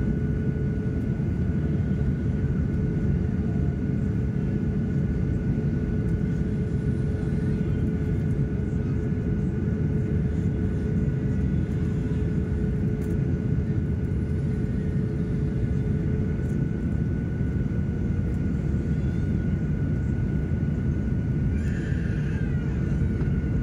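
Cabin noise of a Boeing 737-900ER on its descent to land, heard from a window seat beside its CFM56-7B engine: a steady rumble of engine and airflow with two steady whining tones riding on it, one mid-pitched and one higher.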